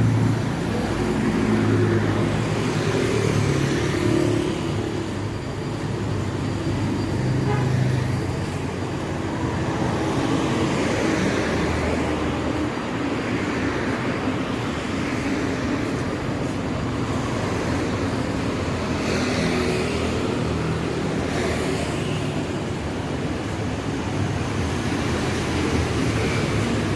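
Street traffic: a steady bed of road noise and engine hum, with several vehicles swelling up and fading as they pass close by.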